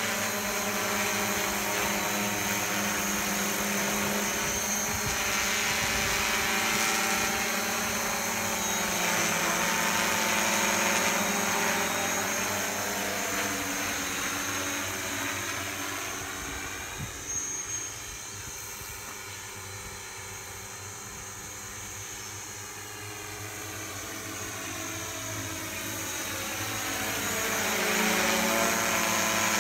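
Propellers of a large multirotor spraying drone humming in flight, a steady layered buzz of rotor tones. It fades as the drone moves off about halfway through and swells again near the end as it comes back. It is flying on newly replaced motors and ESCs after being repaired for unstable flight.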